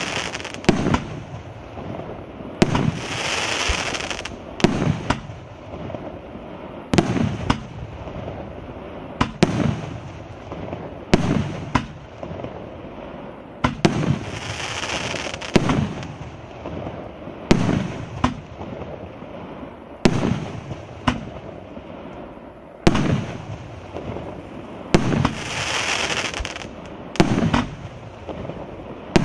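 The "Titan" 19-shot firework cake of 1.75-inch shells firing in sequence. Sharp bangs come about every one to two seconds as shells launch and burst, with a hissing crackle after some of the bursts.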